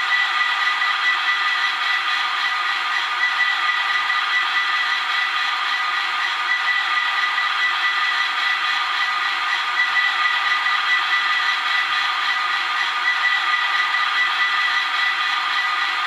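Sound-decoder recording of a Class 67 locomotive's GM-EMD diesel engine idling, played through a OO gauge model's small onboard speaker. It is a steady, thin engine rumble with no deep bass and a constant high whine running through it.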